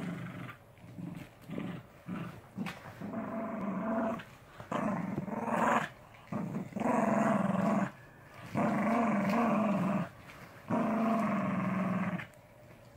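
Dogs growling as they play-fight over a toy: short growls at first, then four longer growls of a second or more each in the second half.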